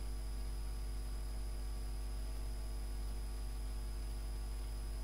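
Steady low electrical hum, typical of mains hum picked up in the recording chain.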